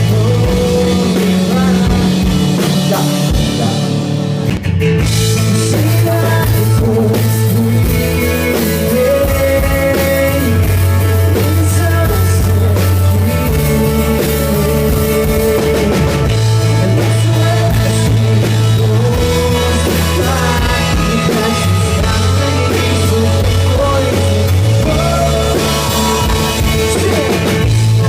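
Live band playing a rock song, loud and steady: drum kit, bass and guitar, with a male voice singing over them.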